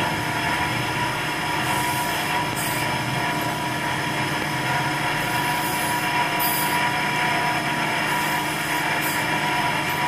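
Steady mechanical drone with several constant tones, and a short hiss surging three times.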